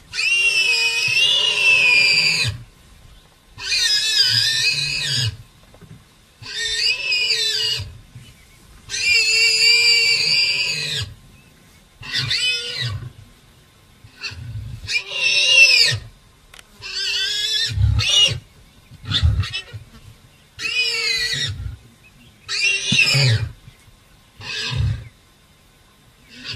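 A warthog squealing again and again, a dozen or so long, high, wavering squeals of one to two seconds each, the cries of a warthog trapped in its burrow by lions. Short, deep lion growls come between some of the squeals, more of them in the second half.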